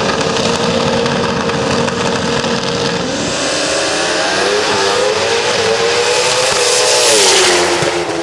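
Two turbocharged drag-racing motorcycles revving steadily on the starting line, then launching about three seconds in and accelerating hard through the gears. Their engine pitch climbs and drops at each shift, loudest about seven seconds in, then fading as they pull away.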